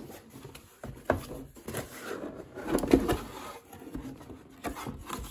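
Cardboard box being handled and its lid opened by hand: scattered taps and rustles of cardboard, the loudest a rustle about three seconds in.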